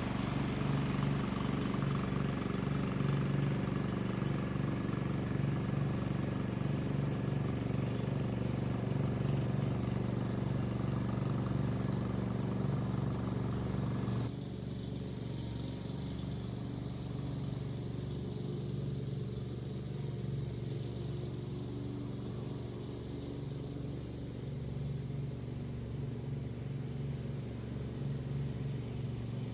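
Husqvarna Rider 13 ride-on mower's single replacement engine running steadily. About halfway through the sound turns duller and a little quieter.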